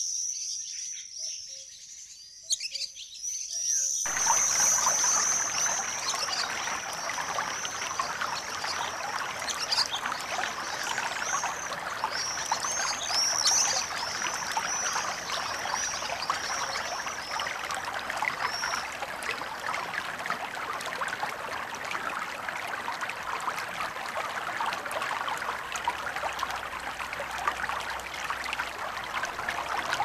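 Birds chirping, then about four seconds in the steady rush of a shallow river running over rocks starts and carries on, with the birdsong continuing over it until about halfway.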